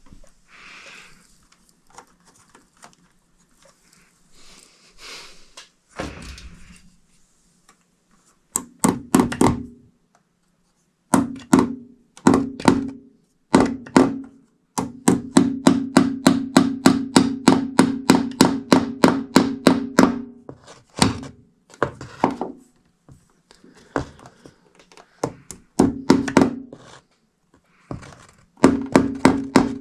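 Hammering: bursts of rapid, ringing hammer strikes, about four or five a second, the longest run lasting some five seconds. Before them, several seconds of faint rustling and scraping.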